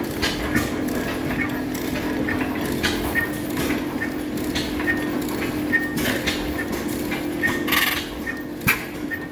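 Antique hit-and-miss stationary gas engines running: a steady drone with a light regular tick about every two-thirds of a second, and several sharper knocks, the loudest near the end.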